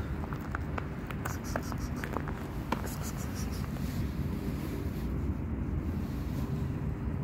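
Wind rumbling on the microphone, with light crunching ticks of footsteps on thin snow during the first three seconds.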